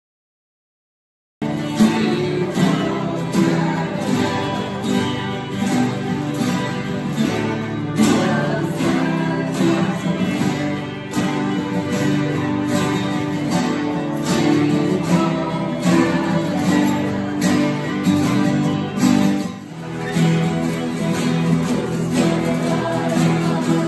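Several acoustic guitars strummed together in a steady rhythm, starting abruptly after about a second and a half of silence.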